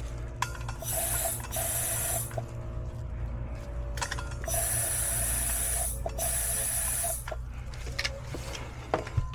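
Two long blasts of pressurized gas hissing through a clogged condensate drain line to blow it clear, each lasting about two seconds, over a steady low hum.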